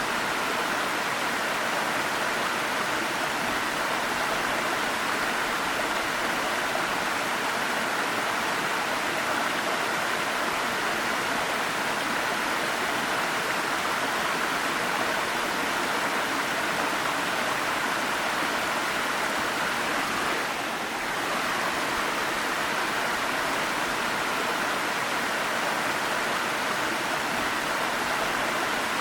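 Waterfall: steady rushing, splashing water, dipping slightly for a moment about two-thirds of the way through.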